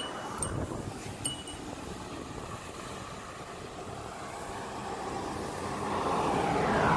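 Steady outdoor background noise with a few light clicks in the first second or so, then a vehicle approaching and passing, growing louder and falling in pitch near the end.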